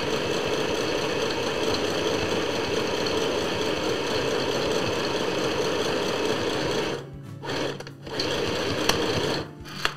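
A 6-volt DC mini portable sewing machine (FHSM505) stitching through folded fabric, run by foot pedal at a steady speed. About seven seconds in it stops and restarts in short runs a couple of times before stopping near the end.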